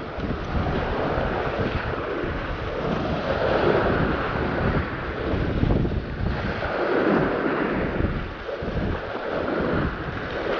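Small sea waves washing over a rocky shoreline, swelling and ebbing in surges every few seconds, with wind buffeting the microphone.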